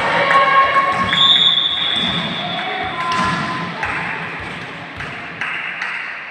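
Indoor volleyball game in a sports hall: players' voices, ball thuds and short high squeaks, growing quieter near the end.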